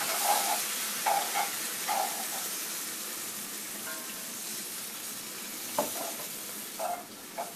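Water poured slowly into a hot roux and vegetables in a cast-iron skillet, sizzling as it hits the pan, while a wooden spoon stirs and scrapes through the mix. The sizzle slowly dies down as the water cools the pan.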